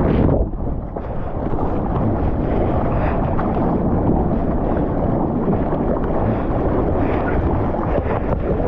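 Steady rushing noise of wind buffeting the microphone over moving seawater.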